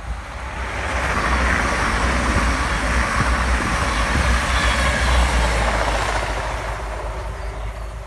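EMR InterCity passenger train passing close by at speed: wheels on the rails and running noise swell within the first couple of seconds, hold strong, then fade as it moves away near the end.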